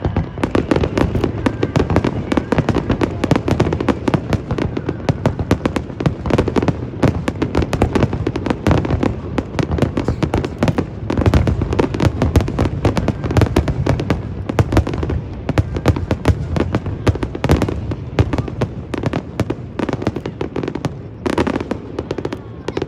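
Aerial fireworks bursting in a rapid, unbroken barrage, many bangs a second.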